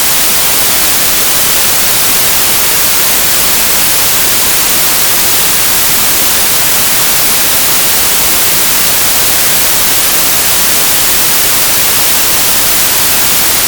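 Loud, unchanging static hiss, like white noise, brightest in the treble and with no other sound in it: the electronic noise of an audio track on a clip shot without sound (MOS).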